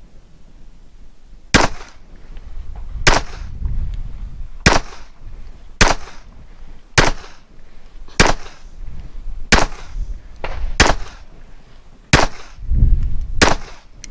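Para Ordnance high-capacity 1911-pattern pistol in .45 ACP firing ten shots at a slow, steady pace, about one every 1.2 to 1.5 seconds, each shot followed by a short echo.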